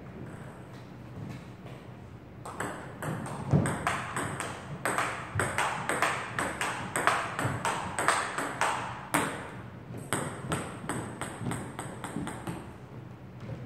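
Table tennis rally: the ball clicking off the paddles and bouncing on the table in quick, even alternation, about four sharp clicks a second. A few faint taps come first, the rally gets loud about two and a half seconds in, and it stops about a second before the end.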